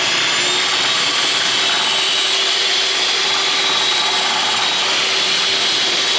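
Vitek electric hand mixer running at a steady speed, its beaters whirring through thin, liquid cake batter in a bowl, with a steady motor whine.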